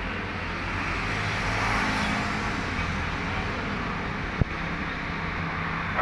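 A motor vehicle engine running steadily, with a continuous low hum and a background hiss of traffic-like noise. There is one sharp click about four and a half seconds in.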